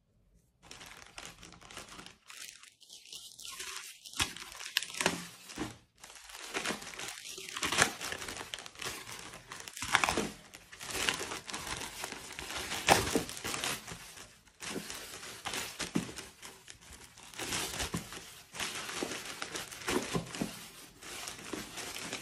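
Plastic mailer bag crinkling and tearing as it is cut and ripped open by hand, many irregular sharp crackles, starting about half a second in.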